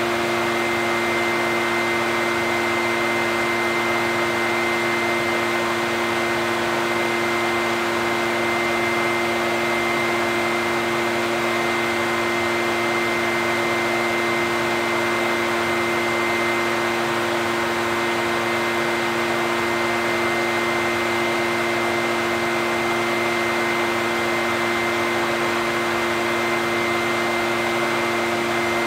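Echo backpack leaf blower running steadily: a constant engine-and-fan drone with a high steady tone over a rush of air.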